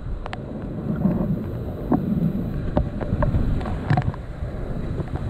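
Rushing white water of a river in flood, heard from a kayak running the rapid, with low rumbling wind on the microphone. Several short, sharp water slaps and splashes from paddle strokes and waves against the boat.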